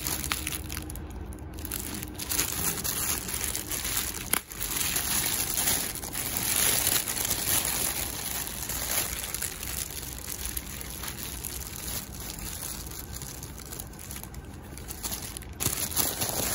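Thin white wrapping around a new sling bag crinkling and rustling as it is handled and pulled open, in uneven bursts with a brief lull about four and a half seconds in.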